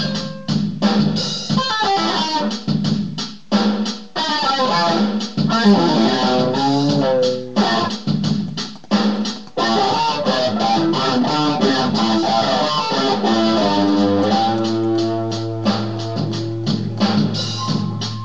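Electric guitar played through a foot-pedal effect: quick runs of plucked notes with pitch bends and slides, settling into a long held low note near the end.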